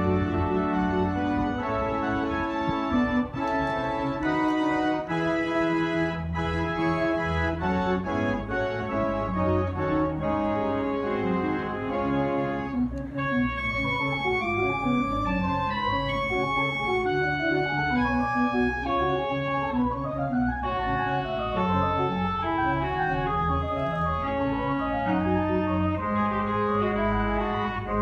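The Spreckels pipe organ playing, with held chords and bass notes under fast runs of notes that climb and fall.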